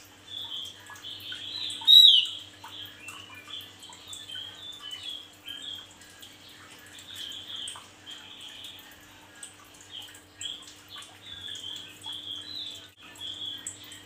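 Male Javan grey-throated white-eye (opior jawa) singing a continuous chatter of quick, short notes, with one loud downslurred note about two seconds in. A faint steady hum lies underneath.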